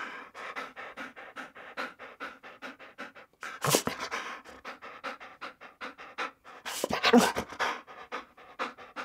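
Dog panting rapidly in a fast, even rhythm of short breaths, about four to five a second. Two louder, fuller bursts break in, one around the middle and a longer one about three-quarters of the way through.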